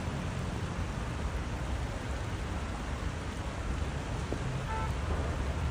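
Steady rushing noise of a swollen, flooded river and falling rain, with a brief faint tone near the end.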